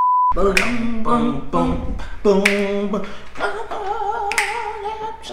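A short test-tone beep with the colour bars, then a man and a woman singing a cappella together, a lower and a higher voice, ending on a long held note with vibrato. Three sharp clicks, about two seconds apart, come through the singing.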